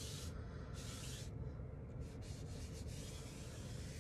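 A damp sponge rubbed in strokes across wet, paint-soaked paper, lifting off the excess black paint from a crayon-resist picture: a soft scrubbing hiss that comes and goes with each stroke.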